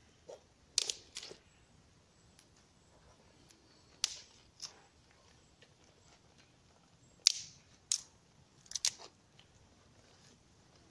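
Small campfire of dry twigs and kindling crackling: scattered sharp pops and snaps from the burning sticks, about eight over ten seconds, with quiet between them.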